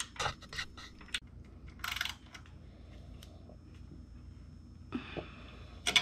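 Small metallic clicks and clinks of hand tools and bolt hardware on a motorcycle's front end: several quick ticks in the first second, a short scrape about two seconds in, and another clink near the end.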